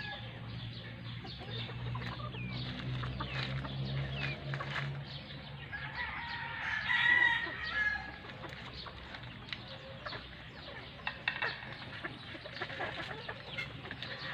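Backyard chickens clucking and calling as they are fed, with a louder, drawn-out call, like a rooster's crow, about seven seconds in.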